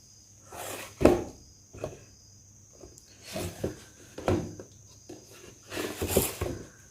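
Packaging and papers being handled out of a box: several irregular rustles and knocks with short quiet gaps between them.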